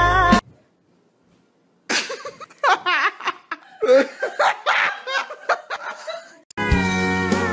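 Soul music cuts off half a second in; after a short silence a person laughs in repeated bursts for several seconds. Near the end, country music with slide guitar starts.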